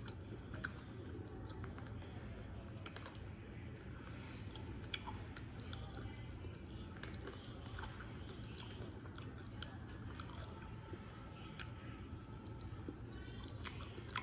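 Close-miked chewing and mouth sounds of a person eating, with many small scattered clicks over a steady low hum.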